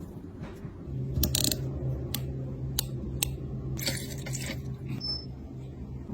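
Sharp clicks and taps of small hard objects being handled, with a short scraping rasp about four seconds in, over a steady low hum.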